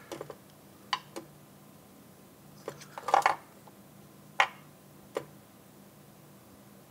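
Small sharp clicks and taps of tweezers and a soldering iron handled while soldering fine wire strands onto a circuit board: scattered single ticks, a quick cluster about three seconds in, then a couple more single clicks. A faint steady low hum lies underneath.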